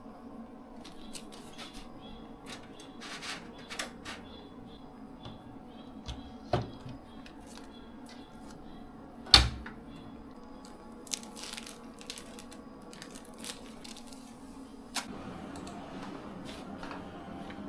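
Scattered light clicks and taps over a steady low hum, with a sharper knock about six seconds in and a louder one about nine seconds in.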